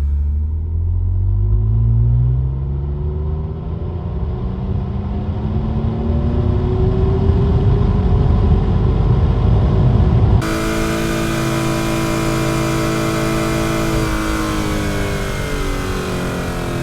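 Jeep Grand Cherokee engine accelerating, its pitch rising steadily for about ten seconds. It then cuts abruptly to another take of the engine running at a steady speed, its pitch easing down near the end.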